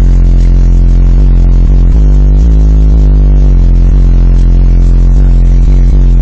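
Bass-heavy hip-hop beat pounding from a car's two 15-inch Fi BTL subwoofers, driven by a Stetsom 6K2D amplifier and heard from inside the cabin. Deep, sustained bass notes dominate and are so loud they push the recording to full scale.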